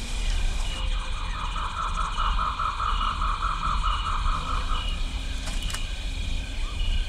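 Outdoor animal ambience: a steady high insect buzz with a soft chirp repeating about once a second, and from about a second in a rapid pulsed animal call, about five pulses a second, lasting around four seconds, over a low rumble.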